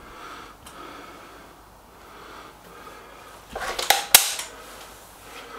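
SMK XS36-1 underlever spring air rifle being handled and cocked for the next shot: faint handling noise, then a quick cluster of metallic clicks and clacks from the cocking lever and breech about three and a half to four seconds in, the sharpest clack near four seconds.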